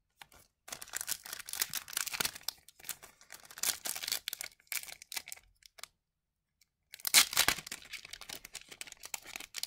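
Foil trading-card pack wrapper being torn open and crinkled: a rustling crackle for a few seconds, a pause of more than a second, then a louder burst of crinkling near the end.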